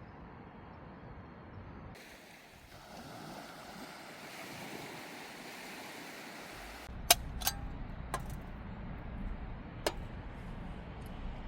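A steady rushing noise, then from about seven seconds in a low rumble with four sharp clicks or cracks.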